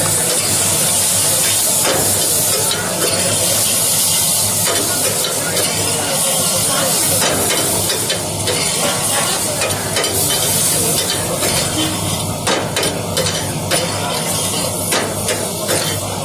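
Pasta in a cream sauce sizzling in a stainless steel frying pan while a long steel spoon stirs and scrapes it around the pan. In the last few seconds the spoon clinks against the pan several times.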